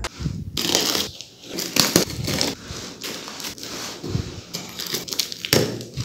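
A tape-sealed cardboard shipping carton being torn open by hand. Packing tape rips and cardboard flaps crackle and rustle in an irregular run of rasps.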